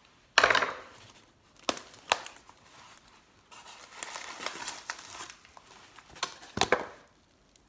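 Plastic packaging being crinkled and pulled off a parcel by hand: a loud rip about half a second in, a few sharp crackles, then a longer stretch of crinkling and a couple more crackles near the end.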